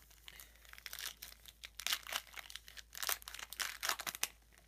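Foil wrapper of a 2013 Topps Strata football card pack crinkling as it is torn open by hand, a run of sharp crackles that stops shortly before the end.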